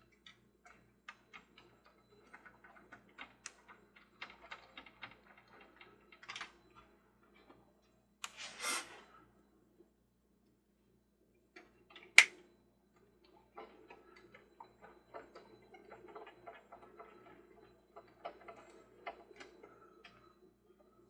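Screws being driven by hand into a plastic toy base: a string of small light clicks and ticks from the screwdriver and parts, with a short scrape about eight and a half seconds in and one sharp loud clack about twelve seconds in.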